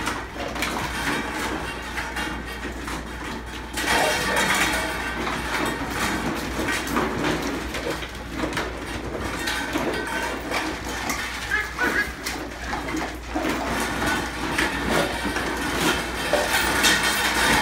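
Young Wheaten and Welsh Terrier puppies playing together: a busy, irregular jumble of small animal sounds and scuffling, with a steady low hum underneath.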